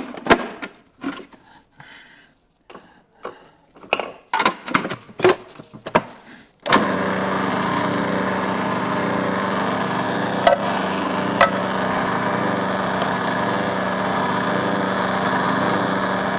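Clicks and knocks of the food processor's lid and pusher being handled, then about six and a half seconds in the electric food processor's motor starts suddenly and runs steadily with a low hum, shredding black radish, with a couple of brief ticks partway through.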